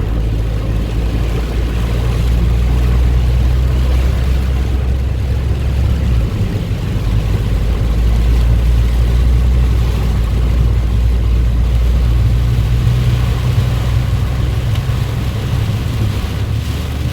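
Vehicle engines running with a steady low rumble, under a broad rushing noise of traffic and water on the flooded road.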